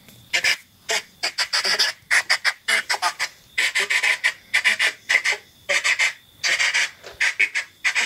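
Spirit box (radio-sweep ghost box) scanning through stations: rapid choppy bursts of static and clipped radio fragments, several a second, with a faint steady high tone behind them.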